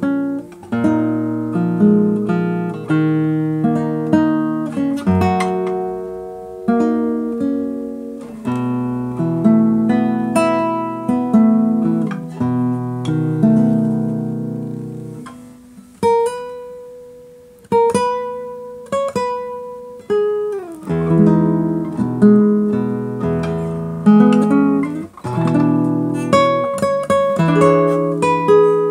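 Solo nylon-string classical guitar, fingerpicked chords and melody. Around the middle the texture thins to a few single notes left ringing, then fuller chords return.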